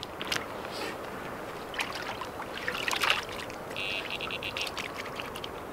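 Water splashing in the shallows, then an electronic carp-fishing bite alarm sounding a rapid string of beeps nearly four seconds in, the signal of a fish taking line on a rod.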